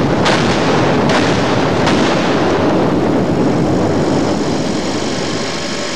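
Special-effects dynamite charges blowing a fireball through a hut: a rumbling blast already under way, with three more sharp bangs in the first two seconds, then the roar of the fireball and fire slowly fading.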